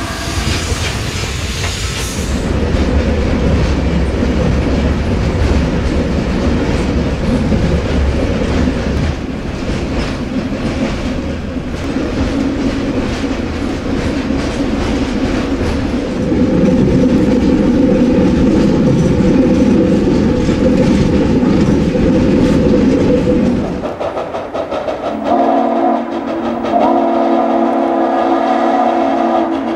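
Freight cars rolling and rattling over the rails, heard from aboard the train, with wheel clickety-clack. About 25 seconds in, the steam locomotive's whistle blows a long, steady chord of several tones that holds to the end.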